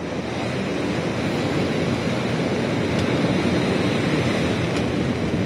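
Stormy sea surf breaking and washing along a rock seawall, a steady rushing noise without let-up.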